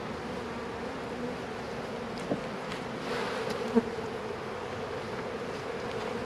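Honeybees humming steadily in a mass around an open hive, a level drone, with two short knocks about two seconds and nearly four seconds in.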